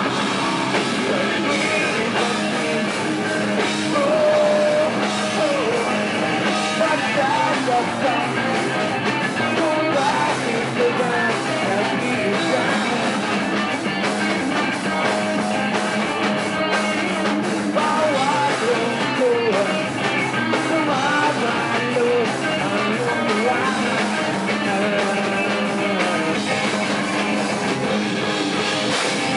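Live heavy rock band playing loud and without a break: distorted electric guitars and drum kit, with a singer's vocals over them.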